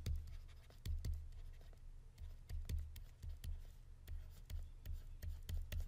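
Stylus tapping and scratching on a tablet screen during handwriting: a scatter of small, irregular clicks over a low steady hum.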